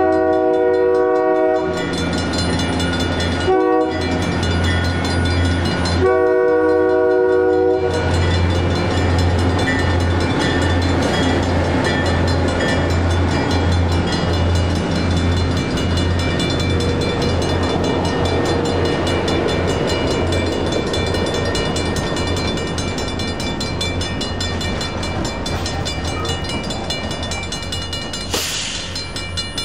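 Napa Valley Railroad 80-ton locomotive 57 sounds its multi-note horn in a long, short, long pattern while the railroad crossing bell rings steadily. The locomotive's engine and the passenger cars then rumble past over the crossing, fading slowly while the bell keeps ringing.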